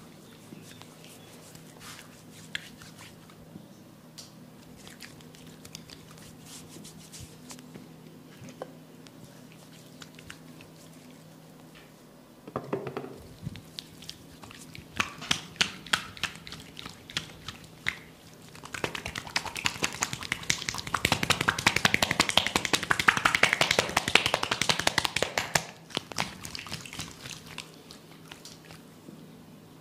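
Hands massaging oiled skin and hair: soft rubbing with scattered clicks, then a dense run of rapid, louder hand strokes for several seconds in the second half.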